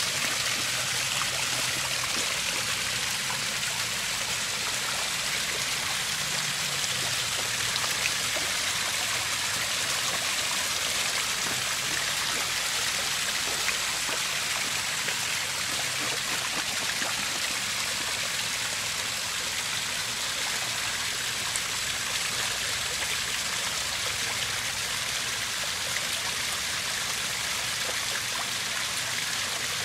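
Small backyard pond waterfall, water spilling over rocks into the pond with a steady splashing rush.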